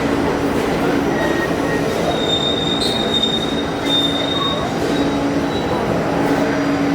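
Inside a moving R68A New York City Subway car: steady rumbling running noise with a low hum, and the wheels squealing against the rails in several brief high-pitched squeals, the loudest a little over two seconds in.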